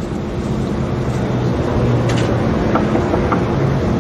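A steady low droning hum that grows slightly louder, with a few short knocks in the second half.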